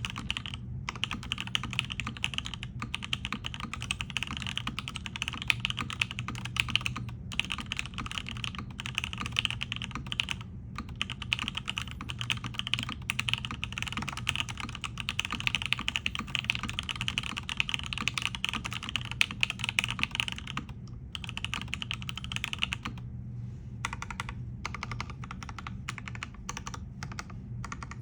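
Fast, continuous typing on a Matrix 2.0add mechanical keyboard with Gateron Box Ink V2 linear switches, an aluminium plate and CRP Tulip keycaps: dense runs of keystrokes broken by a few short pauses, with strokes growing sparser near the end.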